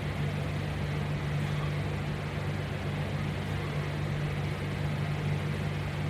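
A steady low machine hum with a constant hiss over it, unchanging throughout.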